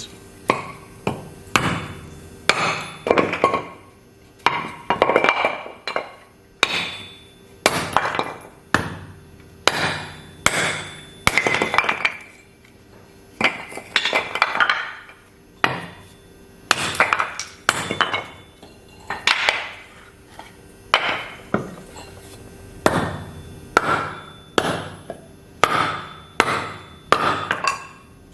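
Rusty, dull Craftsman hatchet chopping scrap pine 2x4 offcuts into kindling: a steady run of sharp chopping strikes, one to two a second.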